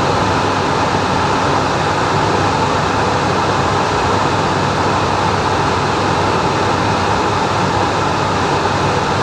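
Steady rushing cockpit noise of a Cessna Citation M2 jet in flight, with a low hum beneath it.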